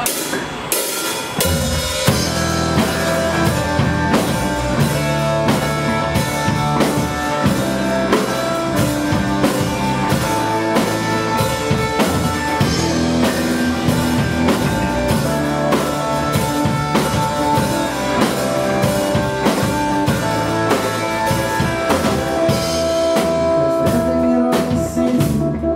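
Live rock band playing an instrumental intro on electric guitar, electric bass and drum kit, with a steady drum beat; the bass and full band come in about a second and a half in.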